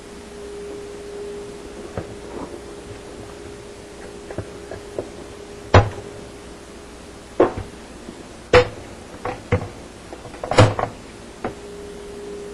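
Plastic parts of a dishwasher's lower spray arm and water-transfer piece clicking and knocking as they are pried loose and lifted out: scattered sharp knocks, several of them loud, over a faint steady hum.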